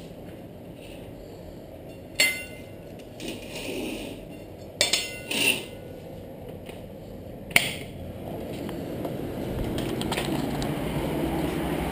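A few sharp knocks and clinks, with short scraping stretches between them, then a low steady rumble of city traffic that grows louder over the last few seconds.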